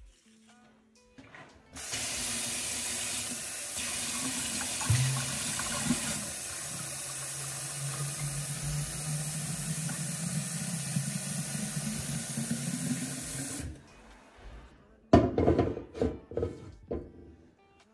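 Kitchen mixer tap running into a glass bottle, filling it with a steady rush of water for about twelve seconds, a low note in it creeping up in pitch as the bottle fills. The water stops, followed by a few knocks.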